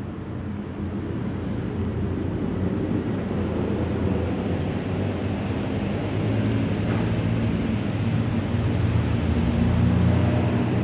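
Tabby kitten purring steadily close to the microphone while being stroked, growing louder toward the end.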